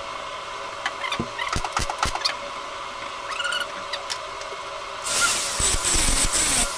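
A few short crackles of MIG tack welding on thin van door sheet metal, then about five seconds in an angle grinder starts up and grinds the fresh welds down with a steady high whine.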